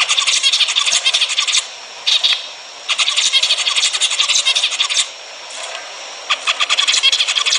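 Zebra finch song: phrases of rapid repeated notes, each lasting from a fraction of a second to about two seconds, broken by short pauses.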